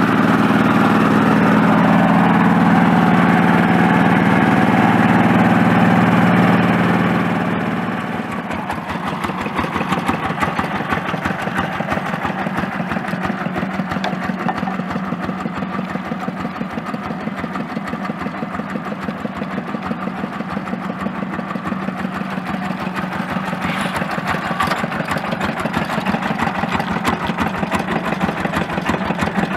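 Small engine of a homemade miniature tractor running at raised speed, then dropping to idle about seven seconds in, after which it ticks over with a fast, even beat.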